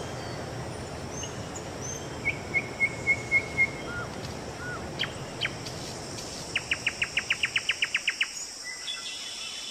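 Birds calling over a steady high drone of insects: a run of about six short repeated notes, a few single chirps, then a fast trill of about a dozen notes, with low background noise that fades near the end.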